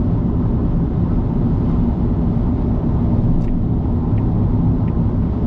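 Car driving at expressway speed, heard from inside the cabin: a steady low rumble of tyre and road noise.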